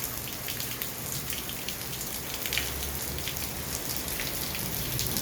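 Heavy thunderstorm rain falling steadily, with many drops striking close by as sharp ticks over an even hiss, and a low rumble underneath.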